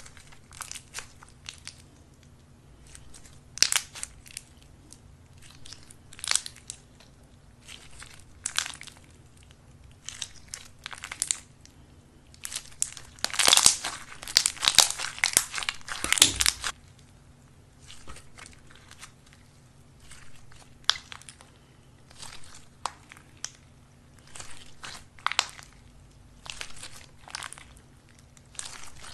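Clear slime with green leaf-shaped pieces mixed in, squeezed, folded and stretched by hand, making irregular crackling squishes and pops. The crackling comes thickest and loudest about halfway through.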